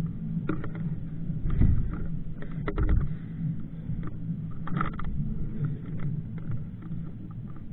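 Clicks, knocks and a couple of heavy low thumps from airsoft players moving and handling their gear, over a steady low hum. Clusters of quick clicks come about two and a half seconds in and again near five seconds.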